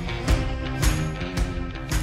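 Background music with a steady beat, about two drum hits a second, over sustained instrument tones.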